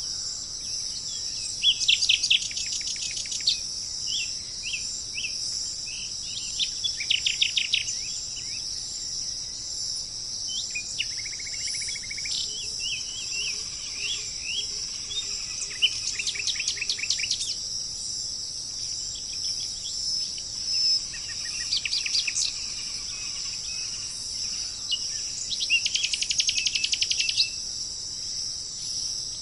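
Songbirds singing rapid, trilled phrases in bursts every few seconds, with short chirps between them, over a steady high-pitched hiss.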